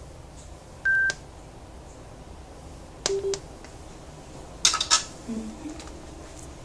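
A waterproof Bluetooth speaker gives one short, loud, high-pitched beep as its large round button is pressed. Then come a pair of sharp clicks about three seconds in and a louder cluster of clicks and knocks near five seconds.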